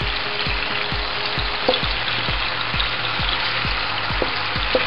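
Vegetables and soy-and-chili sauce sizzling steadily in a hot pan while being stirred with a wooden spoon, with a regular low thump about twice a second.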